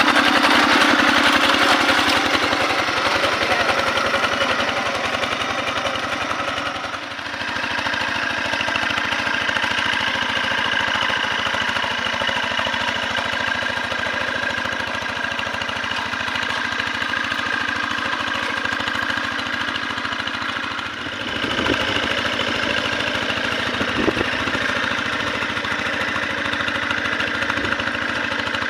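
Single-cylinder diesel engine of a Quick G1000 two-wheel hand tractor running steadily under load as it pulls a plow through wet paddy soil. The level dips briefly twice, about seven and twenty-one seconds in.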